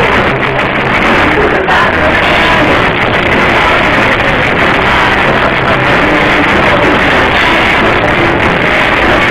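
Live rock band playing loudly: electric guitar, bass guitar and drums, heard dull and muffled with no treble, as through a phone's microphone.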